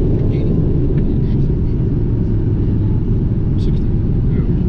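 Gulfstream business jet on its landing rollout, heard from the cockpit as a steady low rumble.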